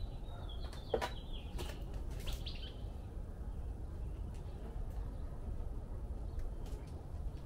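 A bird chirping in short high whistled notes during the first few seconds, over a steady low outdoor rumble, with a few sharp clicks from hands and tools working on the outboard motor, the loudest about a second in.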